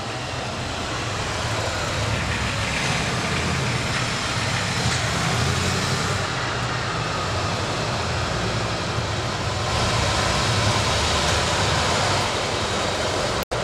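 V-twin cruiser motorcycle engine running with a steady low rumble. It gets a little louder about ten seconds in, and the sound cuts out abruptly for an instant near the end.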